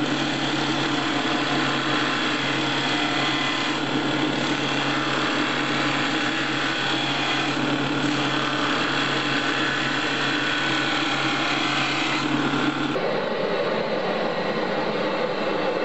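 Belt grinder running with a steady hum while a steel knife blade is pressed against its abrasive belt, giving a continuous grinding hiss. About 13 seconds in this cuts off abruptly and is replaced by the steady rushing noise of a forge burning.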